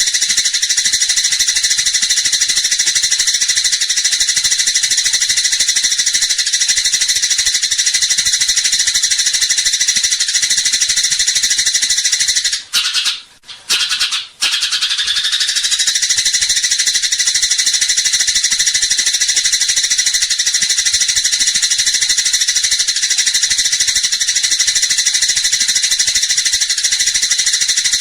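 Eurasian tree sparrows chattering in a dense, unbroken stream of high chirps, the quarrelsome calls of sparrows fighting, with a brief break about thirteen seconds in.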